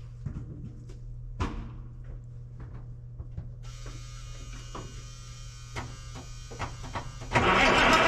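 Autocar semi-truck being started: a few knocks and clicks, then the starter motor whines for several seconds before the engine catches about seven seconds in and runs loudly.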